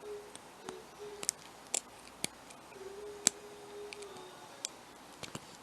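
A lock pick working the pins of a rusty, dug-up padlock under tension, giving about a dozen small, sharp, irregular metallic clicks as the pins set.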